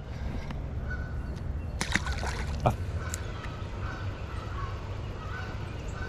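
A small largemouth bass let go into a shallow creek: a brief splash and clatter of knocks about two seconds in, over a steady low rumble, with faint short bird calls later on.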